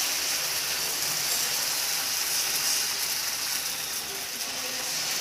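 Rice batter sizzling in a steady hiss on a hot, lightly oiled nonstick pan as it is spread thin with a ladle.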